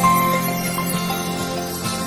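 Instrumental music with held notes, without singing: the passage of a song just before its vocals.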